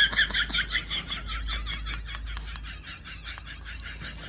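A rapid, even series of short high chirping calls, about six a second, growing fainter.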